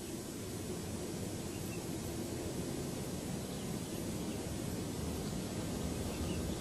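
Steady low outdoor background noise with no distinct events, growing slightly louder.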